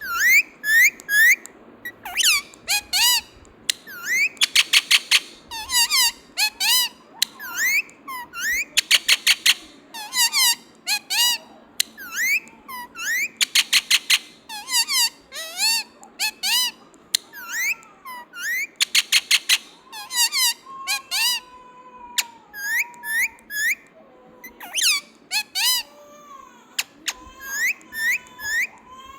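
Indian ringneck parakeet calling: a long string of short, high, bending chirps and squawks. About every four to five seconds the calls break into a rapid chattering run of repeated notes.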